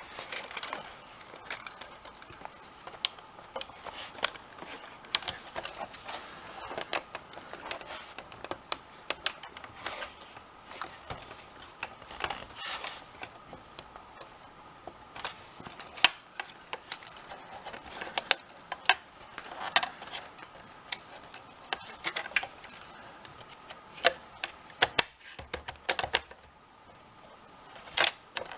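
Irregular small clicks, taps and rattles of hands handling the opened PS4 console's plastic parts during reassembly, with the sharper clicks coming more often in the second half.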